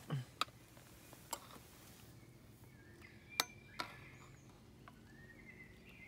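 A few sharp clinks of a spoon against a metal camping pot, the loudest about three and a half seconds in.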